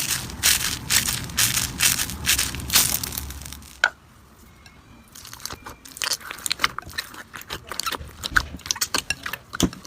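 Crunchy slime being squeezed and pressed by hand, crackling densely for about four seconds with a sharp snap at the end of that stretch. After a short quieter moment it goes on in sparser, scattered crackles and pops.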